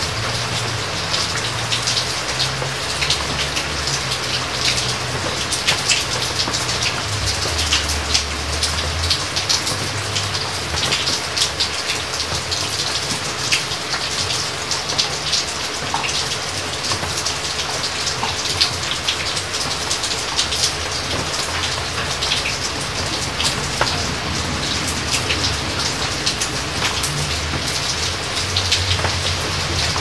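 Steady rain, a dense patter of drops, with a low rumble that swells and fades underneath and a faint steady hum.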